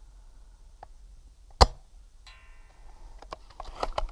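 Tokyo Marui VSR-10 G-Spec bolt-action airsoft sniper rifle, fitted with an M145 spring, firing a single shot: one sharp crack about one and a half seconds in, followed by a short ringing ping. Near the end comes a quick run of clicks and clacks as the bolt is worked for the next shot.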